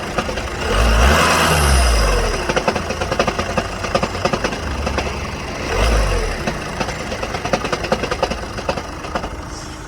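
Volkswagen Passat B6's 2.0 TDI four-cylinder diesel running with a loud, rapid knocking throughout, and the revs rising and falling twice. The owner calls it a terrible knock of unknown cause: it turns up every couple of days and goes away once the engine is switched off and restarted.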